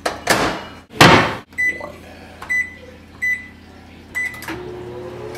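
Microwave oven being started: two loud bumps, four short keypad beeps, then the oven begins running with a steady hum about four and a half seconds in.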